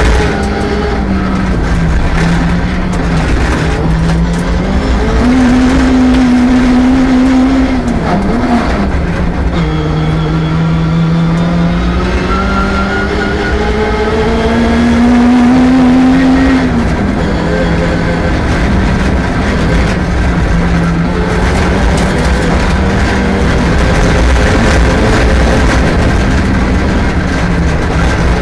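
Rally car engine driven hard on a special stage, its pitch climbing under acceleration and dropping sharply twice as the driver shifts or lifts, then holding fairly steady.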